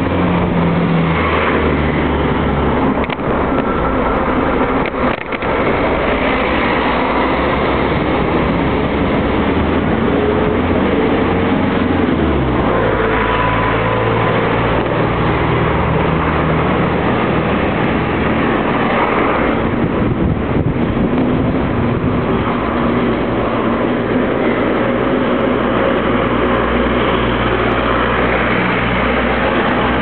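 Motor vehicle engines running in street traffic, with low steady engine hum shifting pitch a few times, over the road and wind noise of a moving bicycle.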